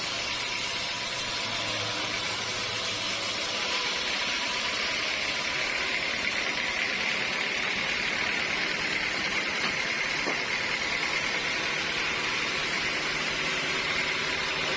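Sawmill running, the saw cutting through a teak log: a steady machine noise, with a steady high whine that comes in after about five seconds.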